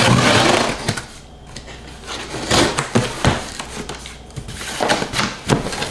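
Box cutter slicing through packing tape along a cardboard box's seam: a loud ripping rasp for about the first second, then scattered clicks and rustles of cardboard and the cutter.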